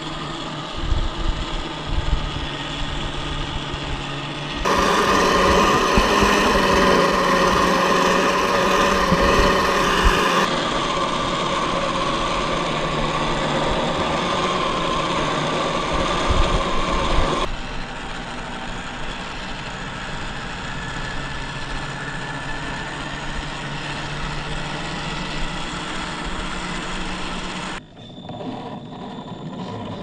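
Scale RC off-road truck's electric motor and gearbox whining steadily over rough crunching from the tyres on the ground. The pitch and loudness jump suddenly several times, loudest for a few seconds starting about five seconds in.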